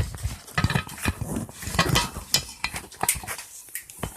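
Irregular clicks, taps and knocks of things being handled and set down, a light household clatter.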